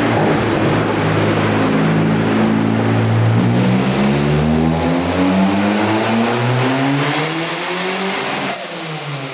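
Turbocharged Ford Focus 2.0 Zetec engine pulling at full throttle through a gear during a tuning pull, its pitch climbing steadily as the revs rise, with a high turbo whistle rising along with it. Near the end the throttle closes and the revs fall away.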